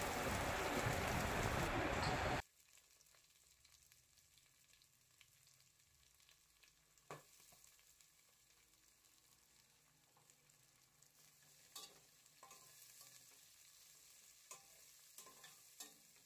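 Oil and ghee sizzling as mint, coriander and green chillies fry in a pressure cooker, cutting off suddenly after about two seconds. Then near silence with a few faint clicks of a slotted steel spatula against the pot.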